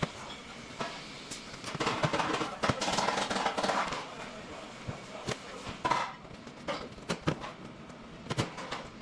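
Irregular knocks and clicks, with a denser rushing clatter from about two to four seconds in.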